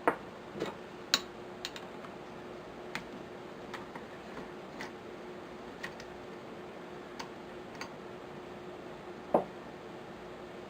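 Scattered light clicks and ticks of a screwdriver working the small screws that hold a Savage Model 64 rifle's trigger, with a louder knock about nine seconds in, over a faint steady hum.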